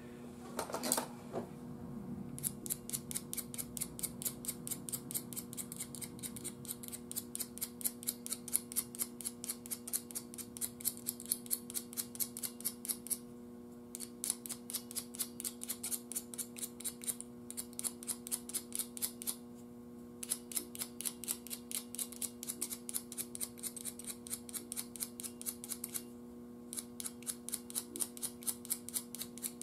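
X-Acto knife blade scraping black corrosion off the brass pins of an old WD-11 vacuum tube's base, in quick rhythmic strokes, several a second, with three short pauses. The pins are being cleaned to bright brass so they make contact in the socket.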